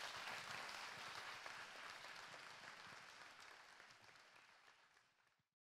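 Audience applauding, the clapping slowly fading away and then cutting off abruptly near the end.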